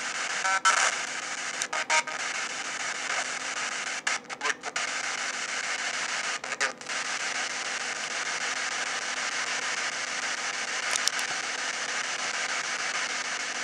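P-SB7 spirit box sweeping through radio stations: a steady hiss of radio static. In the first seven seconds it is broken by several short dropouts and a brief snatch of station sound as it jumps from frequency to frequency.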